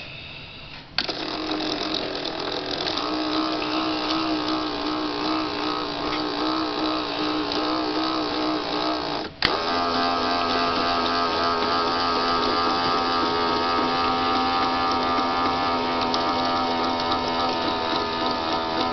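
The electric motor and belt drive of a Micro Machines Power Train City toy railway start up about a second in and run noisily, a mechanical whirr with a wobbling whine as the belt's hook drags the train round the track. Near the middle it breaks off for an instant with a click, then runs on with a steadier whine.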